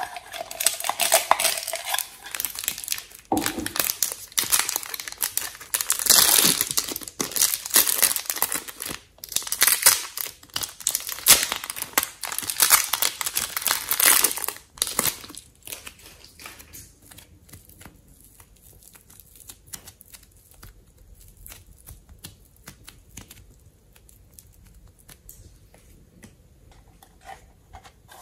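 Clear plastic wrapper crinkling and tearing as it is peeled off a block of soft modelling clay. The crinkling stops about halfway through, leaving faint scattered handling clicks, with a brief rustle near the end.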